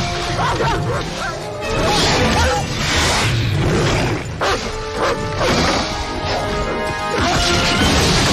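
Movie fight sound mix: a German shepherd snarling as it fights, with repeated crashes and thuds of things smashing, under film score music.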